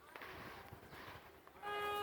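A vehicle horn sounds one steady note near the end, over a faint outdoor background.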